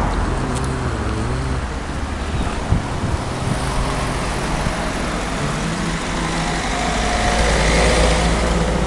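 Road traffic passing close by, over a constant low rumble. About three-quarters of the way through, one vehicle's engine swells as it goes past.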